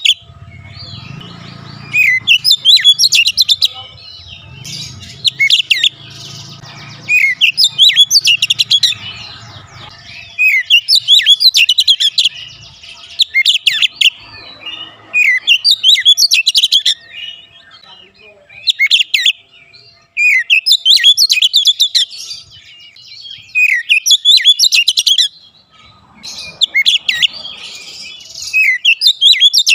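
Oriental magpie-robin singing in full voice: loud phrases of fast, varied whistles and trills, repeated every two to three seconds.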